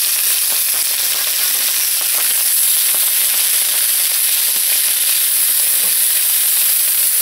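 Oil-marinated chicken breasts sizzling steadily on a hot ridged grill pan.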